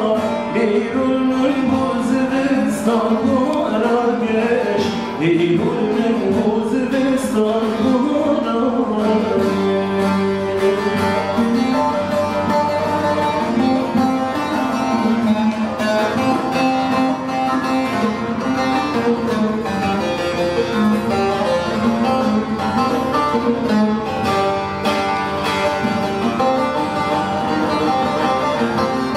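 Long-necked saz (bağlama) being plucked, with a man singing a Kurdish song over it for roughly the first eight seconds, then the saz playing on alone.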